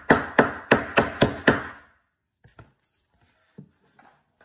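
A quick series of sharp knocks on the particleboard of an IKEA MALM bed frame, about three a second, as a fitting is tapped hard to seat it. It stops about two seconds in, followed by a few faint knocks.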